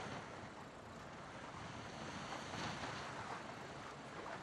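Wind on the microphone and the steady rush and splash of choppy sea around a Tornado racing catamaran under sail.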